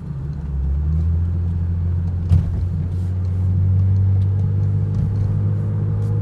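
2011 Chevrolet Camaro's 3.6-litre V6 engine and exhaust running steadily with a low drone, on what the owner thinks may be a quiet aftermarket exhaust rather than stock. A single short click about two seconds in.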